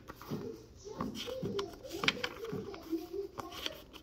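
Pages of a small paper notebook being turned by hand: a series of soft paper flicks and rustles. Faint wavering voice-like sounds run underneath.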